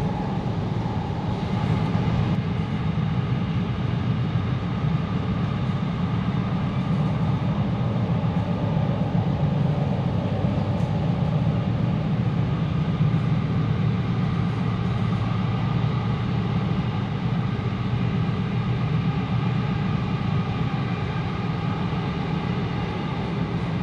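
Interior running noise of an E32000 electric commuter train car: a steady low rumble of the train in motion, with faint steady hums above it.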